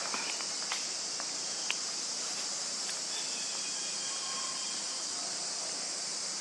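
Steady, high-pitched drone of an insect chorus, with a few sharp clicks in the first two seconds.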